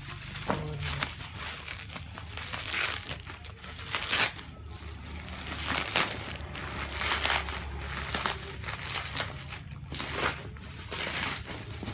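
Packaging crinkling and rustling in irregular bursts as a parcel is handled and torn open.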